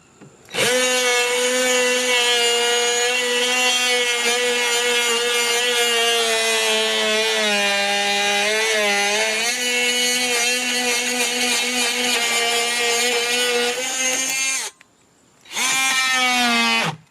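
Cordless Ryobi oscillating multi-tool running with a saw blade fitted, a steady high buzz as it cuts. Its pitch sags and wavers for a moment about halfway through, as the blade loads up in the material. It stops, runs again briefly near the end and winds down.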